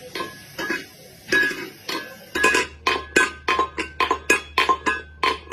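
A series of sharp, ringing clinks, like hard objects struck against dishes or glass, spaced out at first and coming faster, about three a second, from the middle on, with a low steady hum underneath from about two seconds in.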